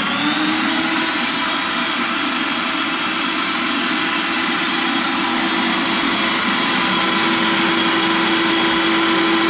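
Electric stand mixer running steadily, its beater whipping a batter of melted butter, sugar and eggs in a steel bowl. A steady motor whine with a mechanical hum.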